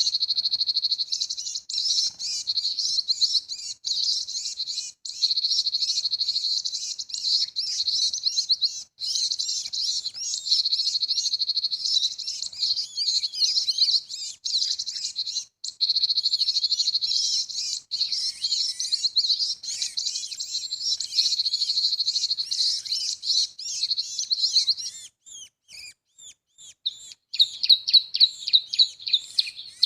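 Bird-call lure recording for trapping cinereous tits, played through a speaker: dense, continuous high chirping that breaks off abruptly for a moment several times. About 25 s in it almost stops, then comes back as louder, separate sharp chirps.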